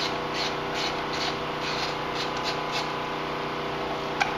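Hand ratchet on a 10 mm bolt, its pawl clicking in short bursts about twice a second as the bolt is spun out, over a steady background hum. A single sharp click near the end.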